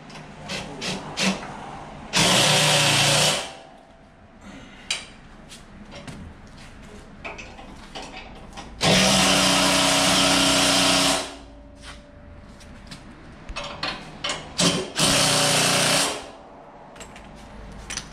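A DeWalt cordless driver running three times, each run lasting one to two and a half seconds, driving bolts into the snow blower's frame, with small metal clicks and knocks of parts and tools between the runs.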